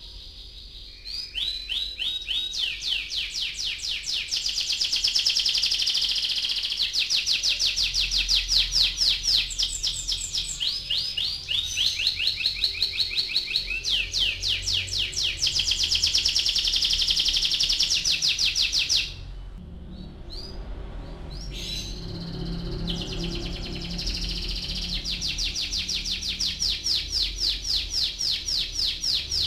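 Domestic canary singing its rolling song: long, fast trills of rapidly repeated notes strung into phrases. The song starts about a second in, breaks off about two-thirds of the way through, and resumes a few seconds later.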